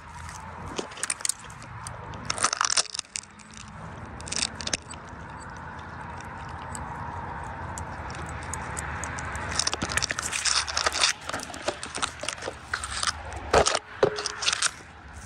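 Spruce branches and twigs cracking and rustling as they are worked by hand, in irregular sharp snaps, loudest in clusters near the start and again in the last few seconds, over a steady low hum.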